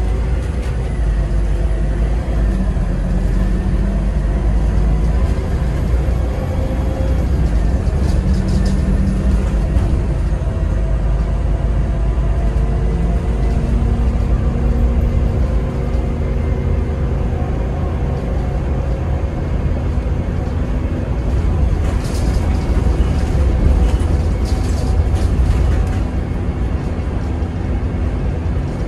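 An Alexander Dennis Enviro300 single-deck bus's diesel engine and transmission running as the bus drives, with pitch rising and falling through the gears. Short bursts of hissing or rattling come about eight seconds in and again in the last third.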